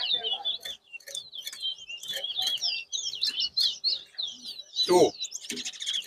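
Towa-towa seed finch singing a fast, continuous run of chirping, warbling notes in a bird-singing match. A short, louder sound with a low component breaks in about five seconds in.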